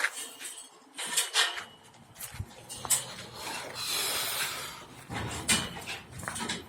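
Swiftlets twittering: scattered sharp chirps, with a denser stretch of twittering around the middle.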